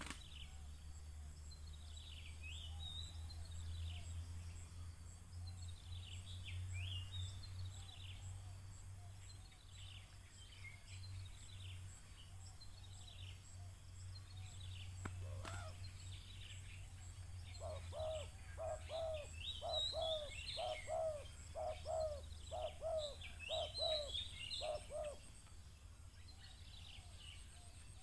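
Small birds chirping and twittering throughout. In the second half a dove gives a run of about ten low cooing notes in a steady rhythm. A steady low hum sits underneath, and there is one sharp tap about halfway through.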